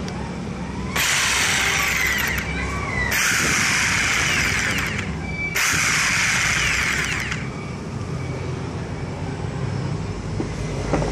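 Makita 4328 variable-speed jigsaw switched on three times, running with no load for one and a half to two seconds each time, its blade moving up and down in the air. Each run starts and stops suddenly.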